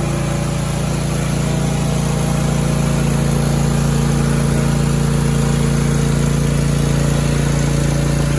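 Cub Cadet Ultima ZT1 42 zero-turn mower's 22 HP Kohler 7000 series twin-cylinder engine running steadily at idle, purring like a kitten.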